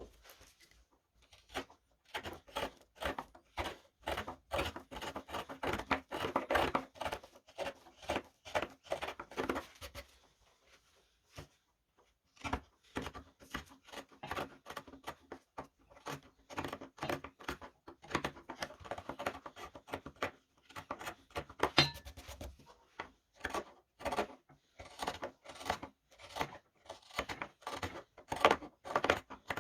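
Round chisels (gouges) cutting wood by hand while carving a wooden spoon: a run of short scraping paring cuts, several a second, with a pause of about two seconds around ten seconds in.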